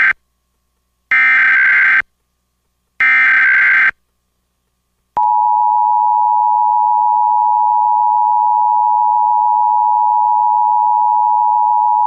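Emergency Alert System SAME header: the end of one burst of shrill warbling data tones, then two more bursts of about a second each with gaps between. After about a second of silence, the steady two-tone EAS attention signal starts about five seconds in.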